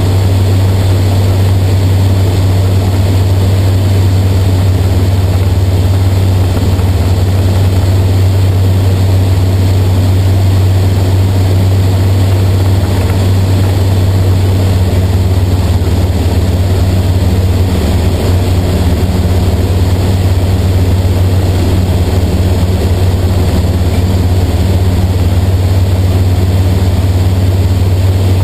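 Sting light aircraft's piston engine and propeller running steadily in cruise flight, heard inside the cockpit: a loud, constant low drone with no change in pitch.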